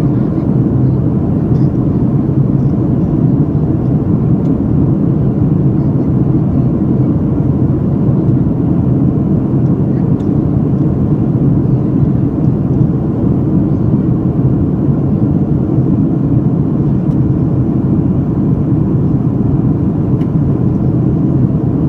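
Steady low roar of an aircraft in flight, unchanging throughout.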